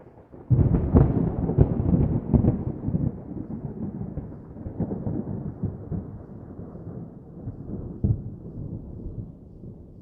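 Thunder: a clap breaks about half a second in and crackles sharply for a couple of seconds, then rumbles on, slowly fading, with one more crack near the end.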